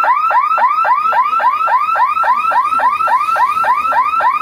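Electronic warning hooter at a railway level crossing, sounding while the boom barrier moves. It gives a fast, even series of short rising whoops, about four to five a second.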